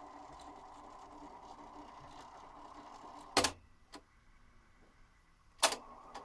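Technics RS-671 cassette deck's tape transport running steadily, then the Stop piano key goes down with a loud clunk about three and a half seconds in and the mechanism falls quiet. Near the end a second key clunks down for rewind, and the transport starts running again.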